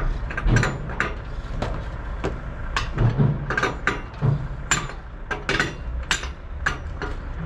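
Metal clicking and clanking of a wheel wrench working the wheel nuts on a truck trailer's wheel, short irregular clicks about two a second, over a low steady hum.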